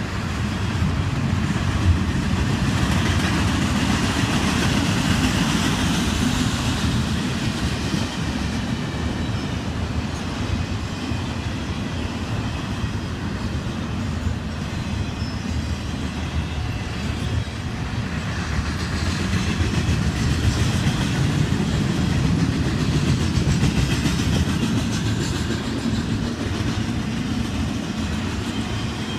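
Double-stack intermodal freight cars rolling past: a steady rumble of steel wheels on the rail with rapid clacking, rising in hiss twice as the cars go by.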